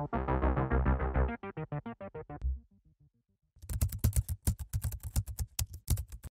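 Background music with quick keyboard notes plays its last bars and ends about two and a half seconds in. After a short pause comes a rapid run of computer-keyboard typing clicks.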